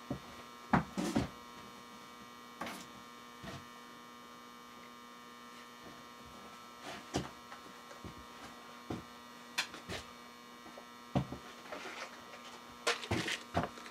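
Steady electrical hum, like mains hum, with a dozen or so short clicks and knocks scattered through it, a few louder ones near the start and a cluster near the end.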